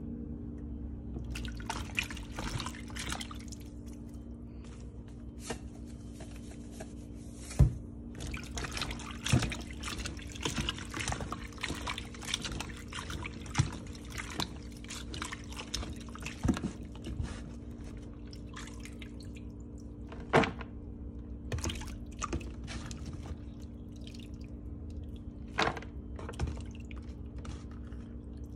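A hand swishes and squeezes sliced bitter melon in a plastic tub of water, making irregular splashes and drips, with a few sharper, louder splashes. A steady low hum runs underneath.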